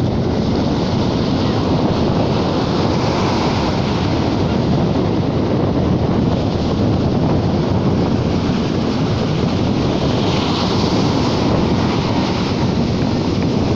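Sea waves washing in steadily, with wind buffeting the microphone; a brighter, hissing surge of surf about ten seconds in.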